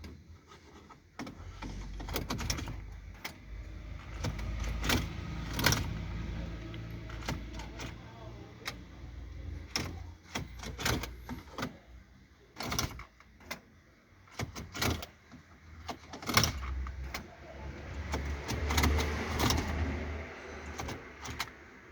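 Volkswagen CC that won't start: irregular clicks and knocks, with two stretches of low rumble.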